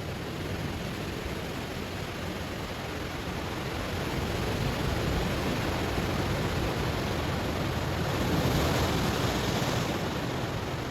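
Sea waves washing onto stones: a steady rushing surf that swells from about four seconds in to a louder, hissier wave break near the end, then eases.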